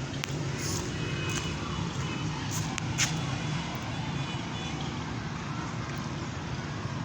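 A steady low hum with a few scattered sharp knocks, the loudest about three seconds in.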